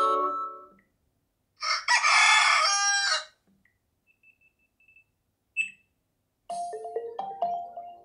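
Sony Xperia 1 VI speaker previewing alarm tones. A synth chime dies away, then a recorded rooster crows once for about a second and a half. A few faint high beeps and a short click follow, and a new melodic tone of quick notes starts near the end.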